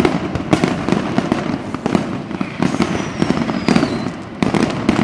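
Fireworks going off: a rapid run of bangs and crackles, with a whistle falling in pitch for about a second midway.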